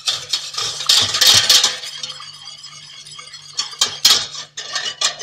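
Wire whisk clinking and scraping against the sides of a stainless steel saucepan, beating a thin cold mixture of milk, sugar and cornstarch. Quick strokes, busiest in the first two seconds, easing off in the middle and picking up again near the end.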